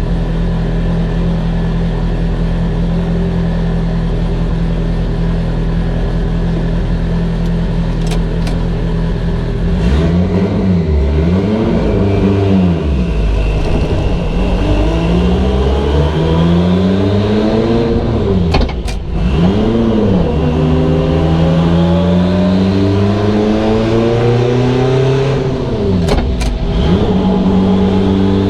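Mitsubishi Evo 8's built turbocharged 2.0-litre four-cylinder running on the dyno. It holds a steady speed for about ten seconds, then is revved up and down a few times and pulled up through the revs in long rises, with a sudden drop in pitch partway through.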